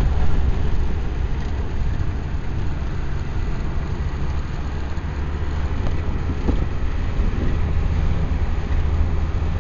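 Ford Model A on the move, heard from inside the car: its four-cylinder engine running with road and wind noise in a steady low rumble.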